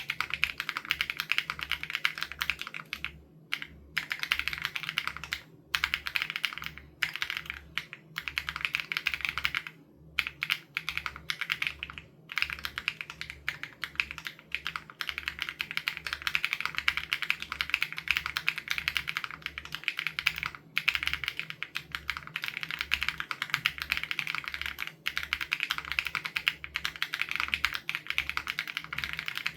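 Continuous fast typing on an SPM AL87B mechanical keyboard with BSUN Raw switches: a dense stream of key clicks, broken by a few brief pauses between words and phrases.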